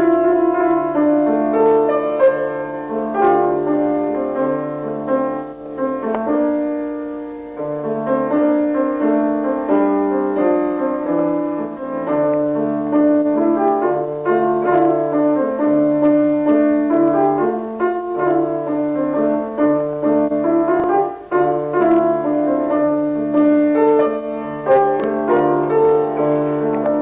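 A keyboard instrument playing a slow piece, with a bass line under held chords.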